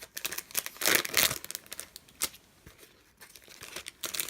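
Crinkling and rustling of stationery packaging as a pad of sticky notes is handled. The loudest rustles come about a second in, with a sharp click a little after two seconds and more rustling near the end.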